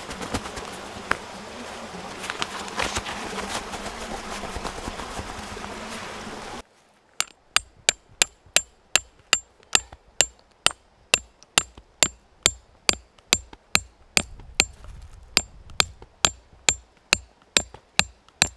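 Close rustling for about six seconds, then a hooked steel tent stake being hammered into stony ground. The strikes are steady and sharp, a little over two a second, each with a bright metallic ring.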